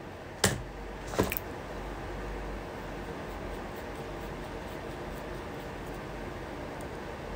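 Steady low room noise with two short, sharp noises, one about half a second in and one just over a second in.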